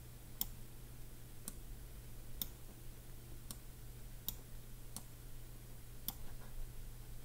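Computer mouse clicking: about seven single clicks roughly a second apart, over a faint low steady hum.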